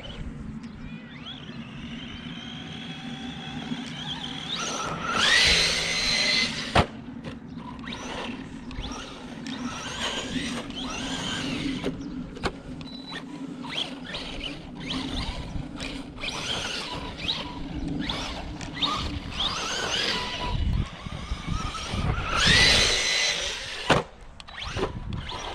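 Arrma Big Rock V3 3S RC monster truck's brushless electric motor whining up and down as the throttle is worked, with strong rising whines about five seconds in and again near the end, and a sharp knock about seven seconds in. A steady low hum runs underneath.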